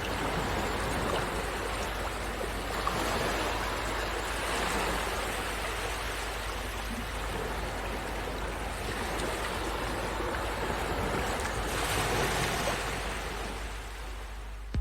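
Sea surf washing on a shore: a steady rush of breaking waves that swells and ebbs gently, rising most near the end.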